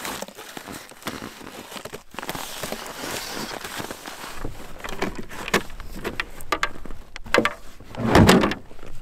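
Outdoor gear being handled: soft rustling, then a run of short clicks and scrapes as a rifle case is opened, with one louder, duller thump about eight seconds in.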